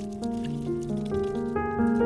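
Background music: a melody of held notes stepping to a new pitch every quarter to half second.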